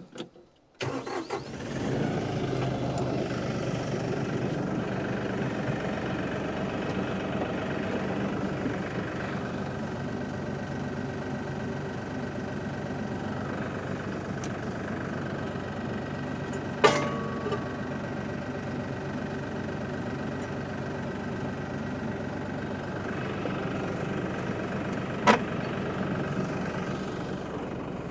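Compact tractor's diesel engine starting about a second in, then running steadily at idle. Two sharp metallic clanks stand out over it, about eight seconds apart.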